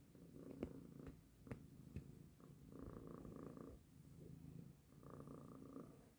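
A tortoiseshell cat purring softly while being stroked, the purr coming in waves with each breath. A few faint clicks in the first two seconds.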